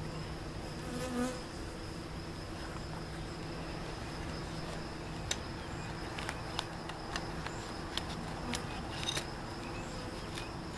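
Swarm of honey bees from a newly installed package buzzing steadily, with a few light clicks scattered through the second half.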